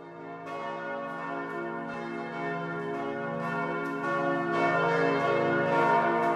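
Church bells pealing, several bells struck over and over so that their tones overlap, the sound swelling louder across the stretch.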